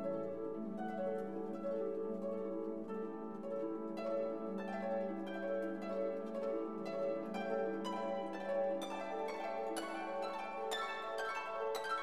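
Instrumental background music: a run of plucked notes over a held low note.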